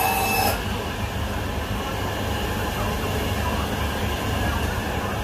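Meat band saw giving a high-pitched squealing whine that stops about half a second in, leaving a steady low machine hum.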